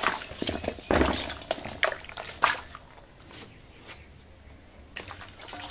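Live koi (climbing perch) splashing and slapping in shallow water in a metal basin: a quick irregular run of wet splashes in the first couple of seconds, then only faint stirring.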